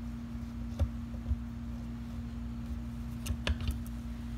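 A few light clicks and knocks from a bolt-action rifle being handled, as the barreled action is worked loose in its chassis, over a steady low hum.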